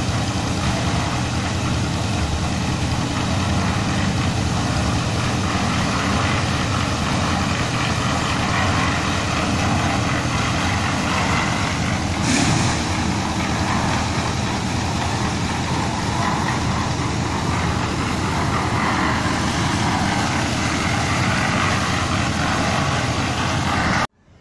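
Engine-driven concrete mixer running steadily, with one short knock about halfway through; the sound cuts off just before the end.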